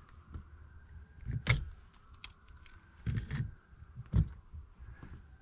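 Channel-lock pliers working the cap of a brass water pressure reducing valve during reassembly, giving a few sharp metal clicks and clanks: the loudest about a second and a half in, more around three seconds and again near four.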